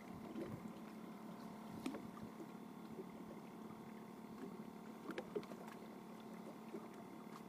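Quiet, steady background of a small boat on the water with a faint hum, broken by a few sharp clicks from the spinning rod and reel being handled: once about two seconds in and twice just past five seconds.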